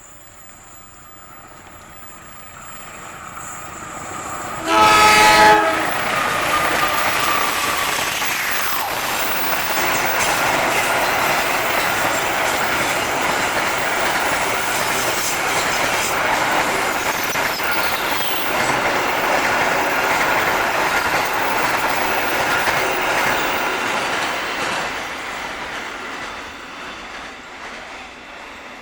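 A train horn gives one blast of about a second as the train approaches, the loudest sound here. The train then passes close by for some twenty seconds, its wheels rumbling and clattering on the rails, and fades away near the end.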